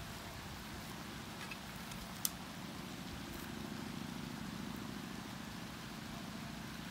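Steady low hum, with one sharp metallic click about two seconds in as a hand-forged iron utensil is hooked onto a wrought-iron rack.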